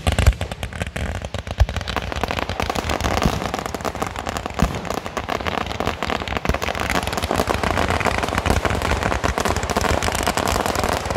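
Fireworks going off: a loud bang right at the start and a few more heavy bangs in the first two seconds, then dense, continuous crackling from a mass of bursting stars.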